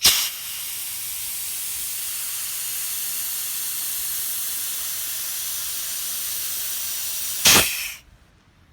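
Compressed-air caulking gun running, a steady hiss of air as it pushes out a bead of sealant. It starts with a sharp puff, and there is a louder burst of air about seven and a half seconds in, just before it cuts off.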